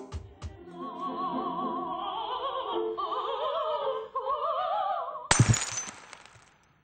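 Operatic singing voice holding wavering notes with heavy vibrato, climbing in pitch, cut off about five seconds in by a sudden loud shattering crash that rings away over about a second.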